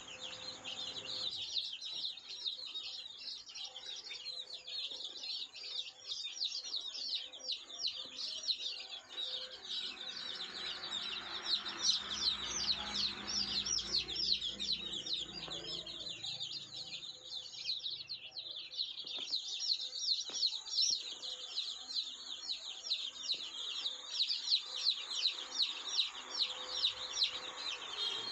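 A crowd of day-old Siruvidai native chicks peeping constantly, many short, high cheeps overlapping without a break.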